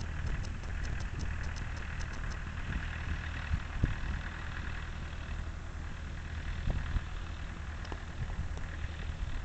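1932 International Harvester A5 truck's engine running steadily at a distance, with a fast, light, even ticking in the first two seconds or so.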